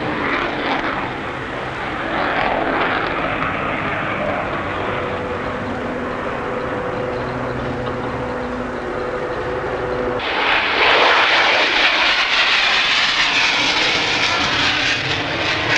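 Jet noise from F-4 Phantom fighters in flight, a steady rushing sound with a faint even hum in the middle. About ten seconds in, the jet noise suddenly grows louder and brighter and stays that way.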